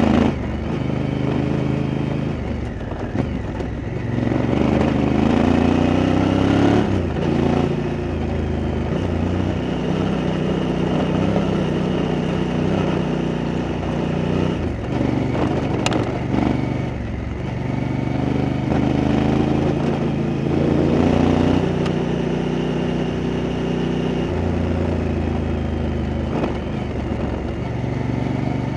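Honda Africa Twin's twin-cylinder engine running under way on a gravel track, its pitch rising and falling repeatedly with throttle and gear changes. There is a sharp click about 16 seconds in.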